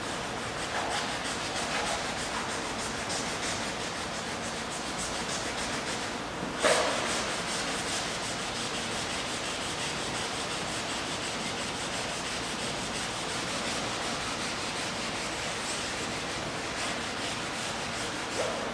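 Hand-sanding a painted canvas: continuous scratchy rubbing strokes over its surface, with one sharp knock partway through.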